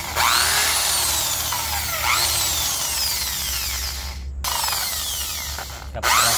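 Corded electric drill driving a wire cup brush against an aluminium engine cylinder, its motor whining over a harsh scrubbing noise. The whine falls in pitch about every two seconds as the brush bites into the metal, with two brief breaks near the end.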